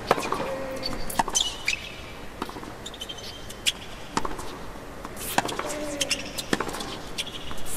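Tennis rally on a hard court: sharp racket strikes and ball bounces, roughly a second apart, with short high squeaks of shoes on the court.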